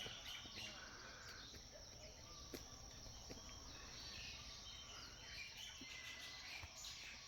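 Faint rainforest ambience: a steady high insect drone with a few soft bird chirps and light clicks.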